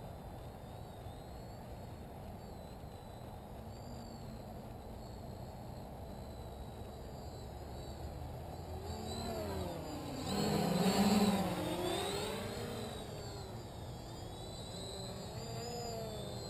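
Quadcopter's four Cobra 2217 950kv brushless motors spinning 10x4.5 props: a buzzing whine that wavers in pitch as the throttle changes. About ten to eleven seconds in it grows loudest and sweeps down and back up in pitch as the quad passes close, then falls back to a quieter wavering buzz.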